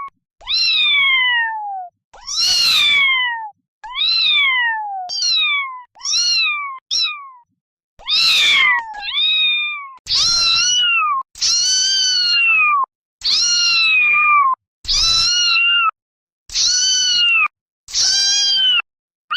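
Kittens meowing: a run of about fourteen high-pitched meows one after another, each falling in pitch, with short silent gaps between them. The later meows are longer and arch up before dropping.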